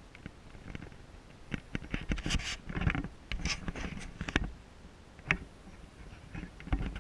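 Irregular scratching and rustling from the microphone of a handheld camera being handled, with scattered sharp clicks, busiest through the middle.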